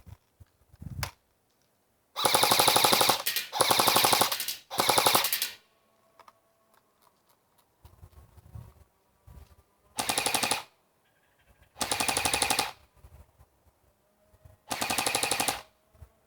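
Cyma AK-47 airsoft electric gun, rebuilt with a D-Boys motor and gearbox, firing six short full-auto bursts: three in quick succession, then three more a couple of seconds apart. Each burst is a rapid rattle of the gearbox cycling and BBs firing, and the rebuilt gun is running okay.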